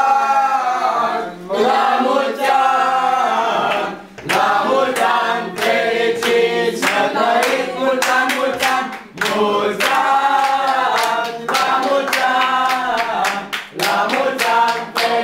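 A group of voices singing a birthday song together, with hand clapping along in a steady beat that gets stronger from about four seconds in.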